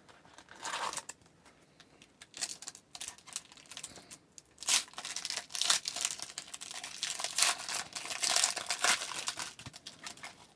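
Plastic trading card pack wrapper being torn open and crinkled by hand, in irregular crackles that grow busier and louder about halfway through.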